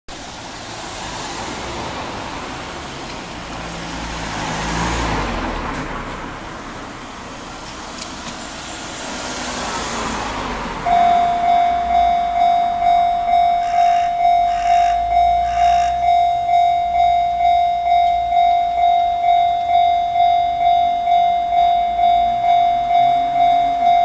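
Road traffic passing, then about eleven seconds in a Japanese level-crossing warning bell starts up: a single electronic ding repeating about twice a second.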